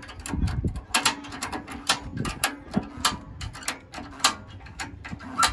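A tow dolly's ratchet strap being cranked tight over a car's front tire: the handle worked back and forth, the pawl giving sharp, irregular clicks, a few a second.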